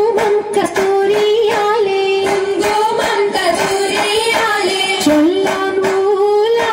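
Oppana song: a Mappila folk melody sung in a high voice over a steady rhythm of sharp beats, about three a second.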